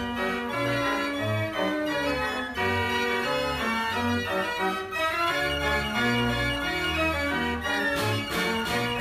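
89-key Marenghi fair organ playing a dance tune: pipe melody notes over separate short bass notes.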